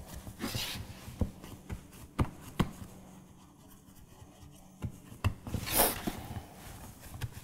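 Hands pressing bread dough down into a metal loaf pan and handling the pan on a plastic cutting board: scattered soft knocks and rubbing, with a brief scraping swish about six seconds in.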